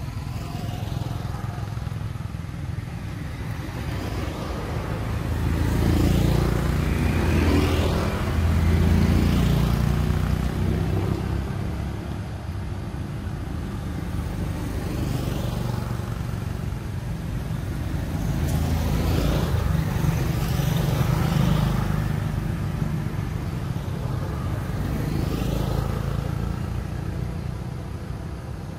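Road vehicles passing: a steady low engine and traffic rumble that swells twice, once about six to ten seconds in and again around eighteen to twenty-two seconds.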